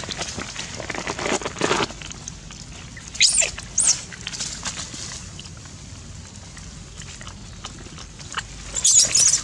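Long-tailed macaques squealing and calling: two sharp high-pitched squeals about three seconds in and a burst of squeals near the end, with lower calls early on, while the troop crowds for food.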